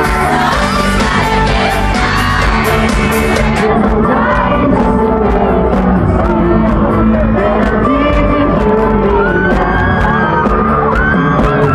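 Live pop band music with lead singing, loud and full, with fans in the audience screaming and shouting over it.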